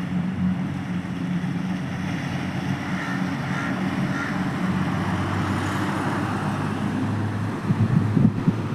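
An engine runs steadily with a low hum. Wind buffets the microphone in a few gusts near the end.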